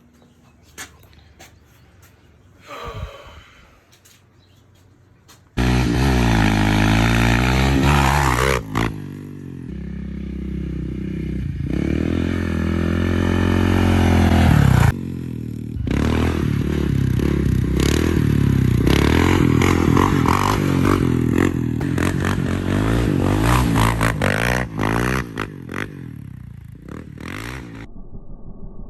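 Bombardier Can-Am DS650 ATV's single-cylinder engine running and revving up and down, coming in suddenly a few seconds in; the machine is running again after its no-start fix.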